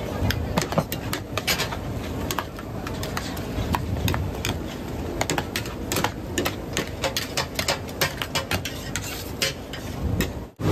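Rapid, irregular clicking and clattering, several sharp knocks a second, over a steady low background din. It cuts off abruptly near the end.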